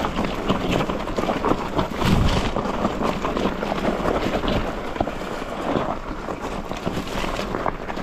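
Mountain bike running fast down a rough, stony trail: wind buffeting the microphone over a continuous clatter of tyres and bike on the stones.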